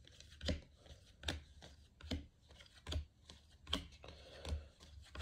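Baseball trading cards being flipped through by hand one at a time: a row of soft, evenly spaced card taps, a little over one a second.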